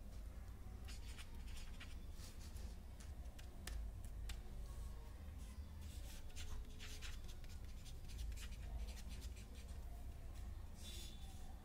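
Ballpoint pen writing on a sheet of paper: irregular runs of short scratching strokes with brief pauses between words, over a low steady rumble.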